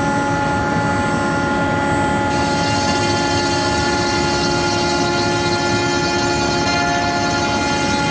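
CNC router spindle running steadily with several held whining tones over a dense noise as the cutter machines MDF.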